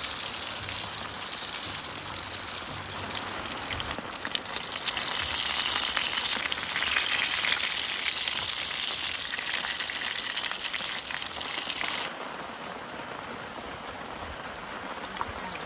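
Heavy rain falling steadily as a dense hiss, which drops abruptly about twelve seconds in to softer rain.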